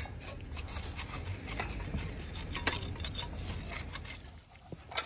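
Faint scraping and light ticks of steel hand finishing tools working wet concrete along the wooden forms, over a low steady background noise.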